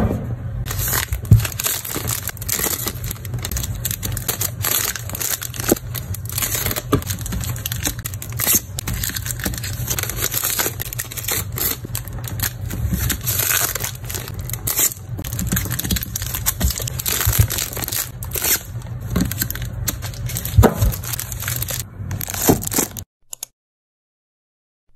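Clear plastic manga covers crinkling and rustling as paperback volumes are slid into them and smoothed, with scrapes and many small clicks and knocks from the handling. The sound cuts off about two seconds before the end.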